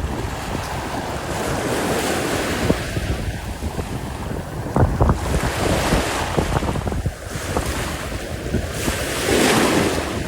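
Sea waves washing ashore in three swells of surf, with wind buffeting the microphone.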